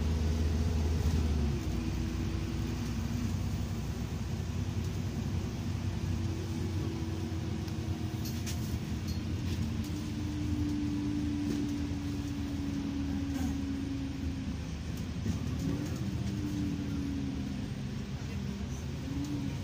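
City bus driving, heard from inside the passenger cabin: steady engine and road rumble with a faint whine that slowly rises and falls in pitch, and a few brief rattling clicks about halfway through.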